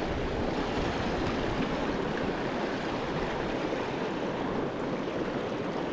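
Steady rush of a mountain river's flowing water over rocks, an even wash of sound.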